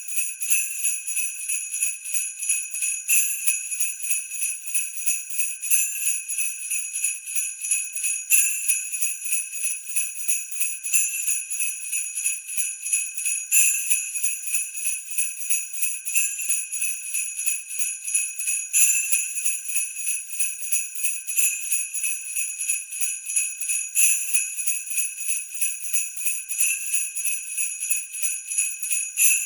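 Sleigh bells shaken in a steady rhythm, jingling without a break, with a stronger accent about every two and a half seconds.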